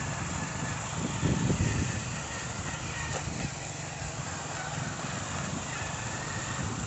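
Motorcycle engine running as the bike rides along a dirt road, mixed with wind and road noise. It is briefly louder about a second in.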